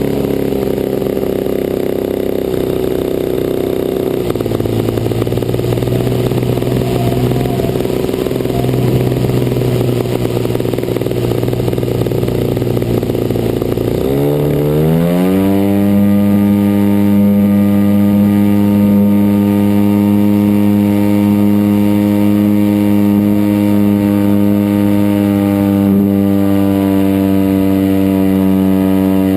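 DLE 55cc single-cylinder two-stroke gas engine of a large RC model plane running at part throttle with a rough note, then about halfway through throttling up: the pitch rises sharply and holds steady at high revs.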